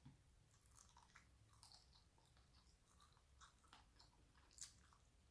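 Faint chewing and biting into crispy fried chicken wings: scattered soft crunches and mouth clicks, the sharpest crunch about four and a half seconds in.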